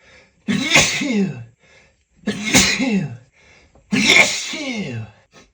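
A man sneezing three times in a row, loud and open rather than stifled, about a second and a half apart, each sneeze ending in a falling voiced cry: a sneezing fit he can no longer hold back.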